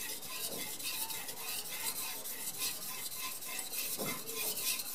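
Steel kitchen-knife blade stroked quickly back and forth on a wet Carborundum (silicon carbide) sharpening stone, an even run of light scraping hisses, several strokes a second. Light pressure polishing of the edge in the final refining stage.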